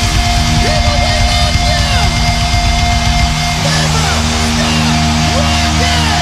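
Heavy rock music with electric guitar; the driving low rhythm drops out about three and a half seconds in, leaving sustained chords.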